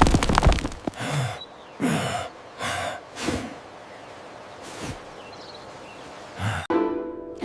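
Several short sighs one after another, each falling in pitch, from cartoon characters disappointed at the low price of their cassava. It then goes quieter, and background music comes back in near the end.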